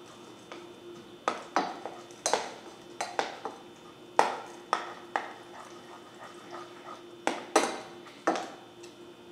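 A spoon knocking and scraping against a stainless steel saucepan while stirring hot macaroni and melting butter: about a dozen irregular clinks, some ringing briefly.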